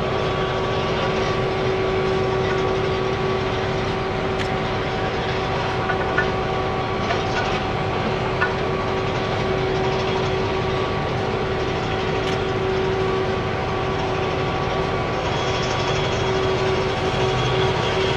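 A heavy machine's engine running steadily, with a constant high whine over it and a couple of sharp clicks, about six and eight and a half seconds in.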